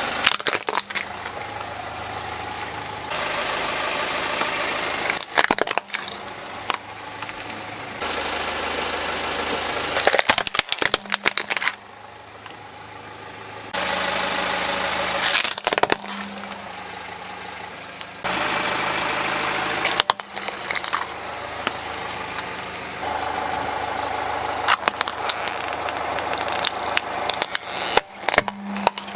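Plastic toy trucks cracking and snapping under a slowly rolling car tyre, several crushes in a row, each a quick cluster of sharp cracks. The car's engine runs steadily underneath, cutting abruptly between clips.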